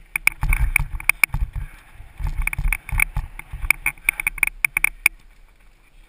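Downhill mountain bike clattering and rattling over a rough, rocky dirt trail, with dense sharp knocks and low rumble on the camera microphone. The clatter stops about five seconds in, leaving a quieter stretch as the bike comes to a halt.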